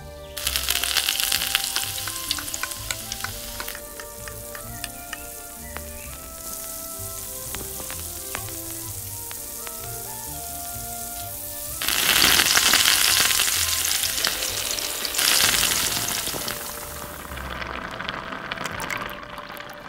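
Hot oil and sauce sizzling in a miniature clay pot as garlic is dropped in. The sizzle surges loudest about twelve seconds in as wine is poured into the pot, then fades near the end.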